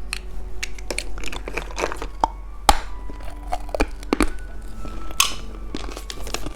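Plastic candy packaging being handled and opened: a scattered run of sharp clicks and taps, with a brief crinkle of wrapper near the end.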